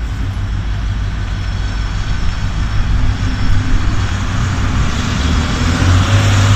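EMD JT26CW-2 diesel-electric locomotive, its two-stroke EMD diesel engine running with a deep steady rumble as it approaches, growing louder toward the end.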